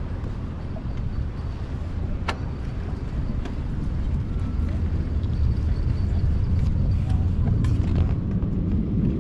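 Wind rumbling on the microphone, with one sharp click about two seconds in and a few lighter clicks near the end as a PVC rod holder is handled against the metal pier railing.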